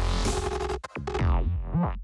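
Electronic dance music with a heavy bass and gliding synthesizer tones, cutting out for a moment just under halfway through.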